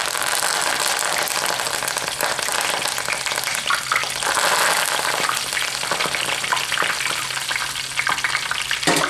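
A tempura-battered curly kale leaf deep frying in hot fat in a Fry Daddy deep fryer: loud, steady sizzling, thick with rapid crackling pops.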